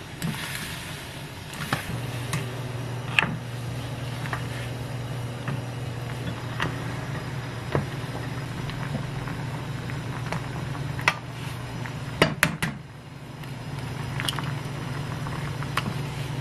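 Pot of water at a rolling boil with a steady low hum under it, potato pieces splashing in at the start. A wooden spoon stirs and knocks against the pot in scattered sharp clicks, with a quick run of taps about twelve seconds in.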